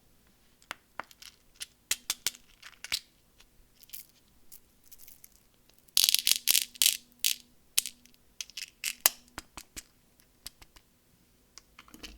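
Candy packaging being handled and unwrapped: scattered small clicks and taps of wrappers, with a louder burst of crinkling about six seconds in that lasts just over a second.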